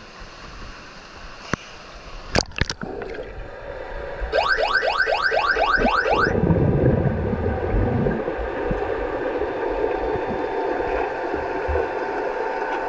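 Underwater hockey referee's electronic signal sounding through the water: a rapid run of rising chirps, about five a second, for some two seconds, the signal for play to start. A few sharp knocks come before it, and a low churning rumble of water follows as the players dive in.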